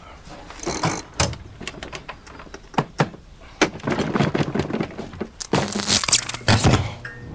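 Clicks, knocks and crackles of someone working on a broken music player to get it going, with a denser patch of crackling about five and a half seconds in.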